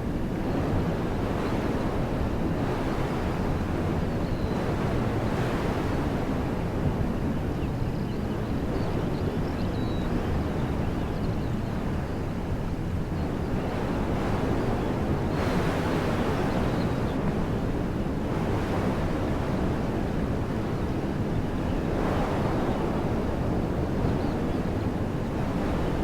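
Wind blowing through woodland trees: a steady rushing of leaves and branches with a low rumble of wind on the microphone, swelling in gusts about midway and again later on.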